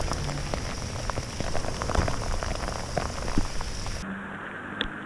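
Rain mixed with hail falling steadily: an even hiss with many light ticks of pellets striking. The hiss thins out about four seconds in.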